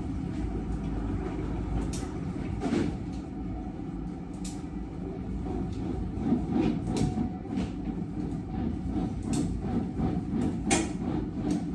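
Salon hair-processing dome running over a seated client, a steady low fan rumble, with a few scattered sharp clicks.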